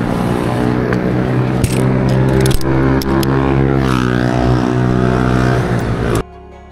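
A motor vehicle engine running steadily at close range, with a few sharp clicks and knocks over it. It cuts off suddenly near the end.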